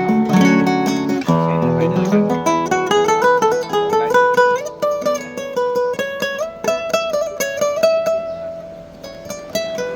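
Yamaha CG162C cedar-top classical guitar with Savarez 500CJ nylon strings, played fingerstyle: full chords for about the first second, then a single-note melody that climbs step by step and settles on higher notes, with a softer passage near the end.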